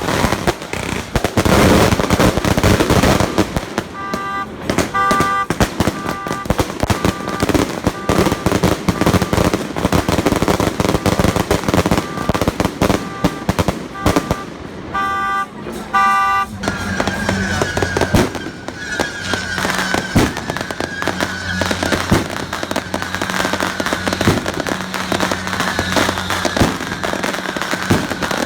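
Firecrackers crackling densely and without a break. From about four seconds in to about sixteen, a short repeated tone sounds about once a second over the crackle. After that a steady low drone with a wavering higher tone runs under it.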